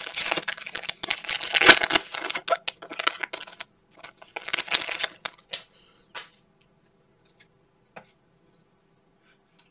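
Foil wrapper of a trading card pack crinkling and tearing as it is ripped open, loudest in the first two seconds, then thinning to scattered crinkles. A few faint clicks follow as the cards are slid out of the pack.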